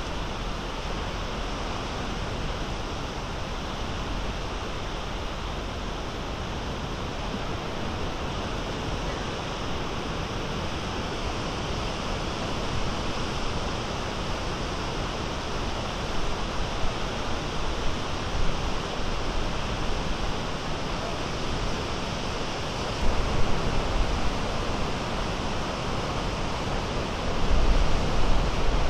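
Small Great Lakes waves breaking and washing toward shore: a steady, even surf hiss, growing with louder low rumbles in the last several seconds.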